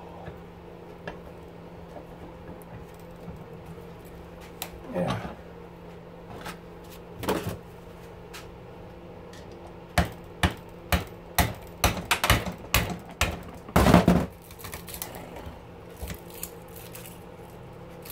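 Hammer striking a screwdriver set against a copper-wound motor stator clamped in a steel bench vise, to break out the copper windings. About ten sharp metallic strikes come in a quick run over roughly four seconds, starting about ten seconds in, and the last ones are the loudest. A steady low hum runs underneath.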